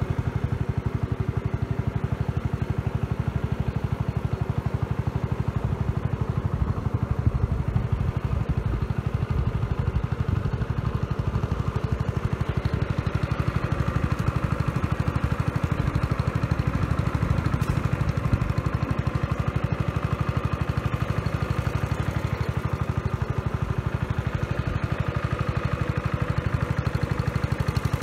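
An engine running steadily at an even speed, with a fast, even beat of firing pulses throughout.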